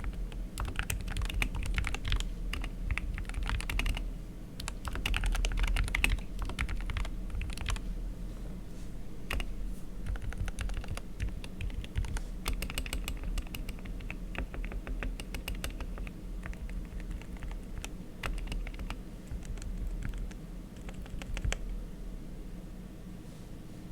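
Typing on a mechanical keyboard with Gateron Silver optical linear switches lubed with Krytox 205, with ABS keycaps in a foam-dampened SK61 case. The keystrokes come in quick runs, thinning out in the last few seconds, over a steady low hum.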